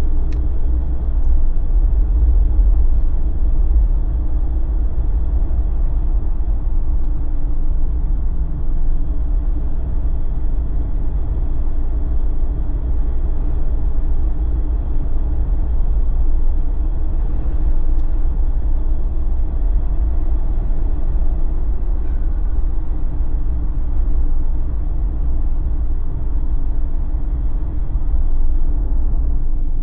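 Steady low rumble of a Jeep driving along the road: tyre and engine noise with no sharp events.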